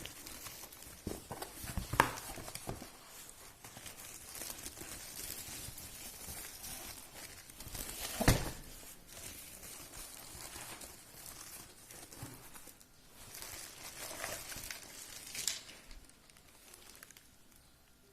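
Hiss and patter of water spraying from a running irrigation sprinkler, broken by a few loud knocks about 2 and 8 seconds in.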